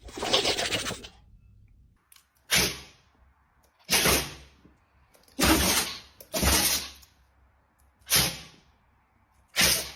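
A dog sneezing over and over: about seven sharp, sudden sneezes roughly one to one and a half seconds apart, the first one the longest.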